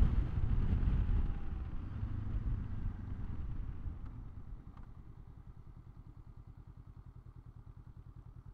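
2023 Honda SCL500's 471 cc parallel-twin engine: wind and engine noise die down over the first few seconds as the bike slows, then the engine idles with a quick, even pulse.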